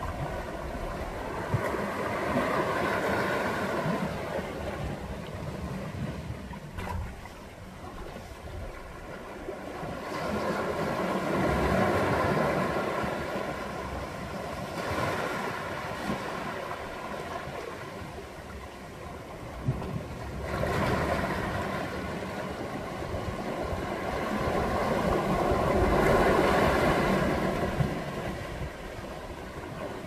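Sea waves surging against shoreline rocks and washing back, the noise rising and falling in four or five slow swells, the loudest near the end.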